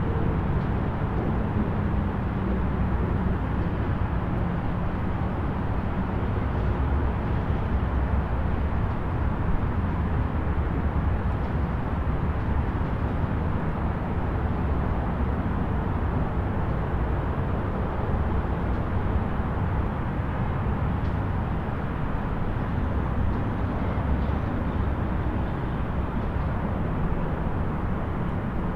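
Distant highway traffic: a steady low rumble of passing vehicles with no single car standing out.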